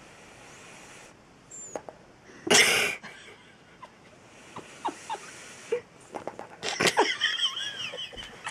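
Sleeping 7-month-old Xoloitzcuintle (Mexican Hairless) puppy snoring: uneven breathy snores, the loudest a short, sharp breath about two and a half seconds in. Near the end comes a longer rasping breath with high squeaky, whistling tones in it.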